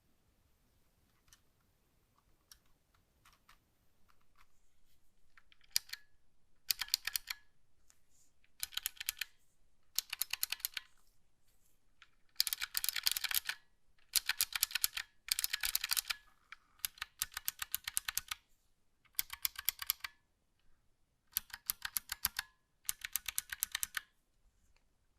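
Typing on a Razer Huntsman Mini gaming keyboard's optical key switches: rapid runs of keystrokes about a second long with short pauses between them, beginning about six seconds in after a few faint clicks.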